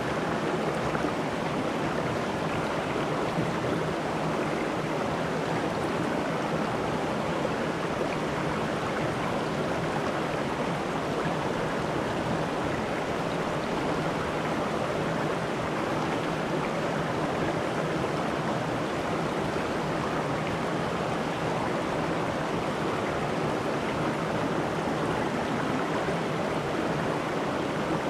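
Shallow rocky stream rushing over stones in small cascades, a steady, even flow of water that does not change.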